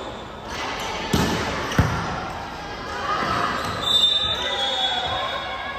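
Indoor volleyball play in an echoing hall: the ball is struck sharply twice, about a second in and just under two seconds in, and players' voices call out during the rally.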